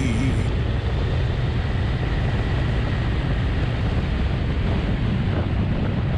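Motorcycle on the move: steady engine drone mixed with wind rushing over the camera microphone.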